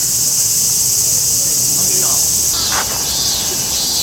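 Continuous high-pitched drone of summer insects, most likely cicadas, shifting in pattern about two and a half seconds in, over faint distant voices.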